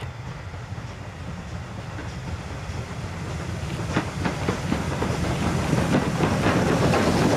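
Double-headed steam train, led by LMS Ivatt Class 2MT 2-6-0 No. 46521, approaching and passing close by with a steady rumble and steam hiss, growing steadily louder. From about four seconds in, the wheels click over the rail joints as the locomotives go by.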